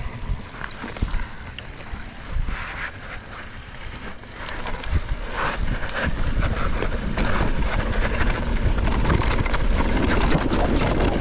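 Mountain bike riding down a loose dirt singletrack: tyres crunching over the dirt and the bike rattling over bumps, with wind rumbling on the microphone. The wind rumble grows louder and steadier about six seconds in as the descent picks up speed.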